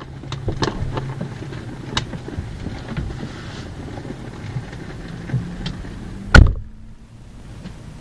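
Vehicle engine idling with a steady low hum, with a few small clicks and knocks. A car door is shut once about six and a half seconds in, the loudest sound, after which the cabin goes quieter.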